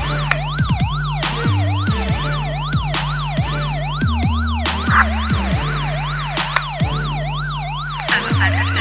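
Electronic music track with a siren-like wail sweeping up and down about three times a second, over held deep bass notes that change every second or two.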